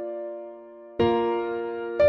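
Background music of slow keyboard chords: one chord fading away, then a new chord struck about a second in and left to ring.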